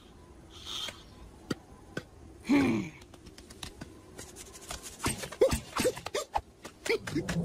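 Cartoon sound effects: a short falling vocal sound about two and a half seconds in, then a quick run of clicks, taps and brief pitched vocal blips from about five seconds on, as the animated animal characters move and react.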